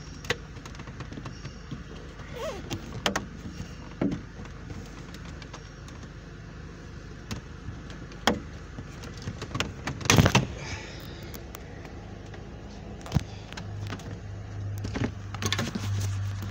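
Plastic dashboard trim on a Range Rover L322 being worked loose and pulled out by hand: scattered clicks and knocks of clips and panel edges, with a loud burst of rattling knocks about ten seconds in. A low steady hum sets in after that.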